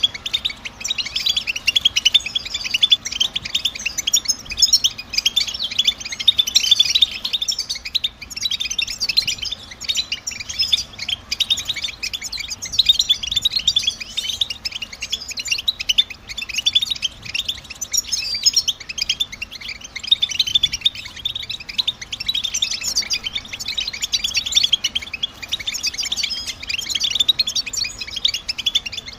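European goldfinches twittering and chattering in a fast, unbroken stream of short, high chirps, the contact-call chatter that keepers play to caged goldfinches to set them singing.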